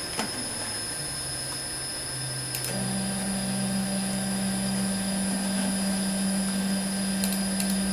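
Stepper motors of a Zen Toolworks CNC hot-wire foam cutter humming as they drive the X and Y axes. A steady low tone comes in about a second in, then about three seconds in it switches to a louder, higher steady tone as the motion changes speed. A short click comes at the start.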